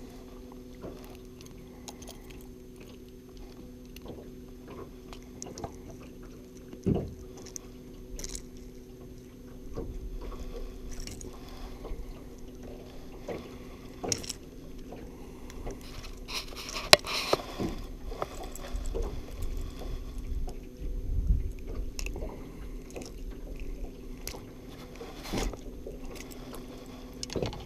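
Small clicks, taps and rustles of hands working a deeply swallowed jerk bait's treble hooks out of a small bass, close to the microphone, with a louder scraping rasp about two-thirds of the way through. A steady low hum runs underneath.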